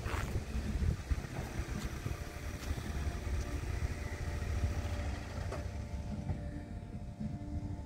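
Lowa ET54 tram rolling slowly over curved track and points: a steady low rumble, with a few sharp clicks of the wheels over rail joints. A faint steady tone comes in about three seconds in.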